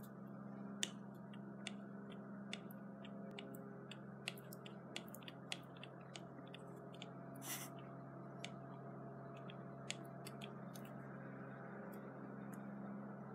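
Hand-sanitizer gel slime being poked and stirred by fingers in a plastic jar, giving faint irregular sticky clicks and small squelches, with a longer squelch about halfway through. A steady low hum runs underneath.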